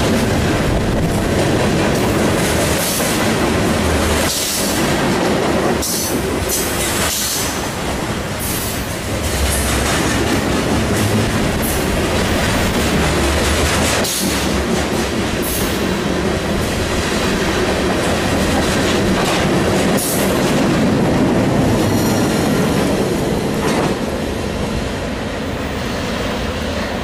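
Freight train cars rolling past at speed close by: a steady rumble of steel wheels on rail with irregular clacks over rail joints and a faint high wheel squeal late on. The noise drops a little near the end as the last cars go by.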